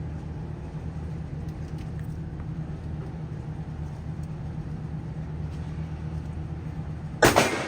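A steady low mechanical hum and rumble. About seven seconds in comes one loud, sharp bang that rings out briefly.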